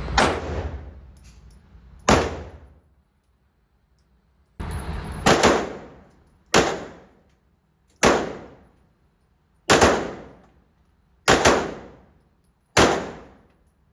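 Gunshots from a firearm at a shooting range: about eight single shots spaced roughly a second and a half apart, each a sharp crack with a short echoing decay.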